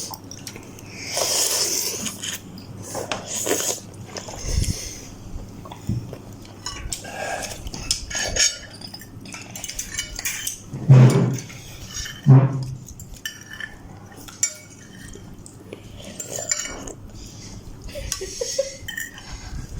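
Spoon and fork clinking and scraping against a bowl during eating of instant noodles, in scattered irregular clicks, with two louder knocks about eleven and twelve seconds in.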